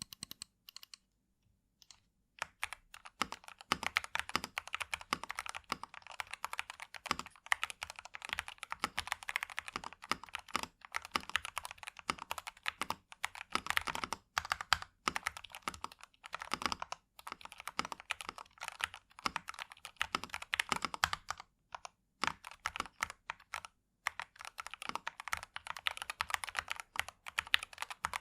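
Typing on a DustSilver D66 65% mechanical keyboard with factory-lubed Gateron G Pro Red linear switches and lubed, tuned plate-mounted stabilizers. A few separate key presses, then fast continuous typing from about two seconds in, broken by brief pauses.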